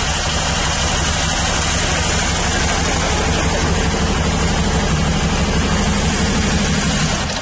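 Moto Guzzi motorcycle's transverse V-twin engine idling steadily.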